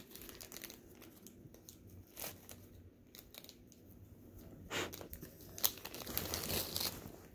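Small clear plastic zip bag crinkling as it is handled, in faint scattered crackles that grow busier and a little louder in the second half.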